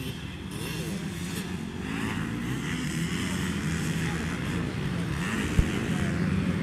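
Motocross dirt bike engines running on the track, their pitch rising and falling as the riders work the throttle, with one sharp knock near the end.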